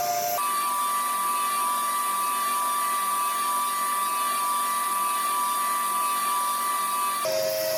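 Table saw running with a steady high-pitched whine while its blade trims the edge of a plywood disc turned by hand against it. The whine jumps up in pitch just after the start and drops back near the end.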